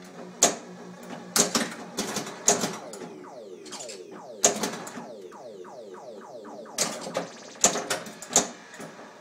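Sorcerer pinball machine in play: a string of sharp mechanical clacks from flippers, bumpers and solenoids, with the machine's electronic sound effects sweeping down in pitch between them, mostly in the middle.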